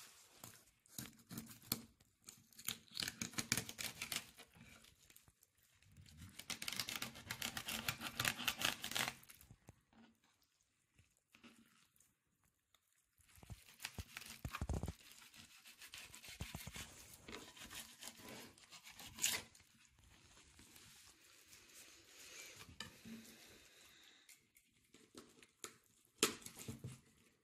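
A thin filleting knife cutting through a fresh trout on a plastic cutting board: crackly scraping and tearing as the blade works through skin and flesh. It comes in several runs with short pauses, and there are a few sharp knocks.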